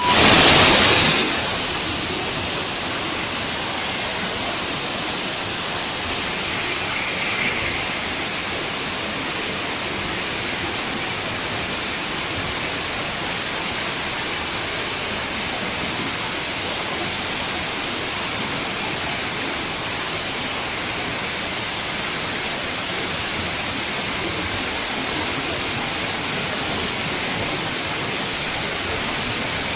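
Waterfall: a steady rush of falling water, with a louder surge in the first second or so.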